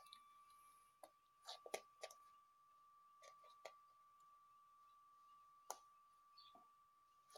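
Faint, scattered soft clicks and short rustles, about eight of them, from a Maine Coon kitten's paws and claws on a wooden floor and the sheer curtain fabric it is playing under. A faint steady tone sits underneath.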